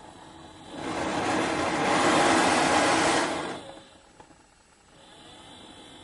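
Hair dryer blowing air through its burning heater end: a loud rushing of air and flame that swells about a second in, holds, and dies away before four seconds, leaving a faint steady hum.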